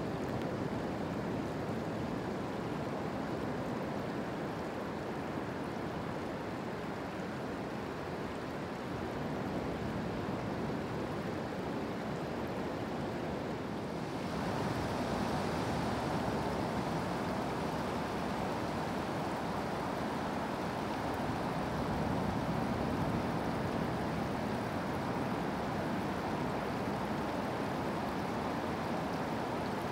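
Pacific surf breaking on the beach as a steady wash of noise, with the water of a shallow creek running over gravel close by. The sound grows a little fuller about halfway through.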